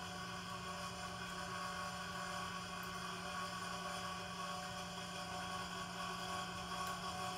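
Steady machine hum: a constant low drone with several fixed higher tones above it, unchanging throughout.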